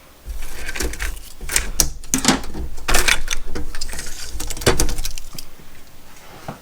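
Handling noise: a quick run of clicks, knocks and rattles of small hard objects being moved and set down, over a low rumble, dying away about a second before the end.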